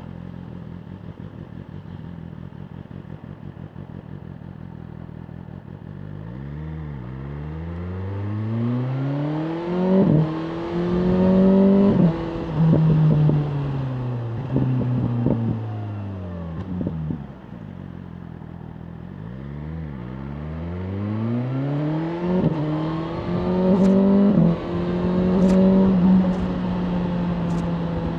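BMW M1000R Competition's inline-four engine pulling hard through the gears twice, its pitch climbing and dropping sharply at each upshift, with a long falling note of deceleration between the runs. It runs at a steady, lower note at the start and again near the end.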